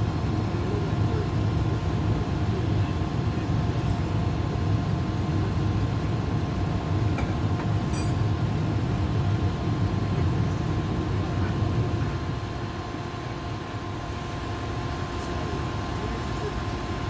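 Heavy truck engine idling steadily: a continuous low drone with a faint steady whine above it, easing slightly about twelve seconds in.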